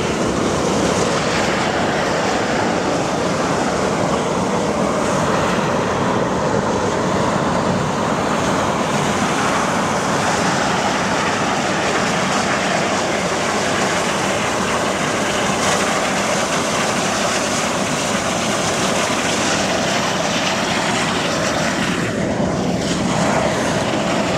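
Steam jetting from geothermal vents: a steady, unbroken roar of rushing steam.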